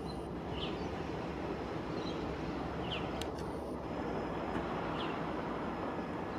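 81 class diesel-electric locomotive running as it hauls a train of open wagons slowly by: a steady low engine and rolling rumble.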